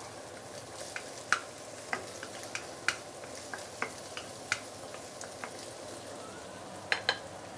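Scrambled egg and spring onion sizzling in oil in a non-stick wok, with irregular sharp taps of a wooden spatula as it stirs and scrapes against the pan.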